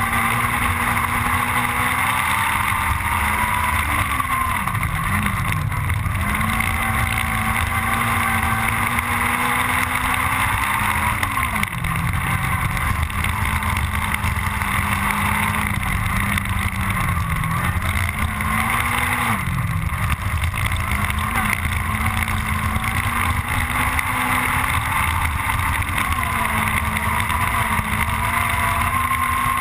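In-car sound of a Honda Civic Type R rally car's four-cylinder engine running hard at high revs, its pitch dropping and climbing again several times as the driver lifts and shifts through the corners. Tyre and wind noise are mixed with the engine.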